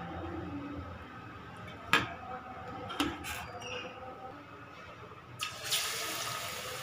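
Two sharp clicks about a second apart, then, near the end, a batter-coated vegetable bread roll going into hot oil in a kadhai and sizzling steadily as it starts to deep-fry.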